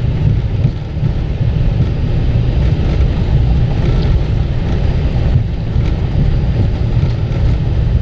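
Airbus A320 on its landing roll, heard from inside the cockpit: a loud, steady low rumble of the wheels on the runway and the rushing airflow, with the engines out of reverse thrust.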